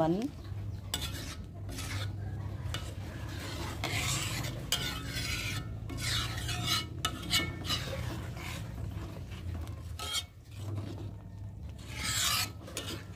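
Metal ladle stirring coconut-milk broth in a metal wok, scraping against the pan in irregular strokes. The broth is stirred steadily to keep the coconut milk from splitting.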